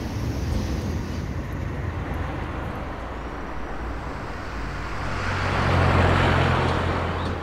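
Road traffic with a steady low rumble, and a vehicle passing by that swells to its loudest about two-thirds of the way through, then fades.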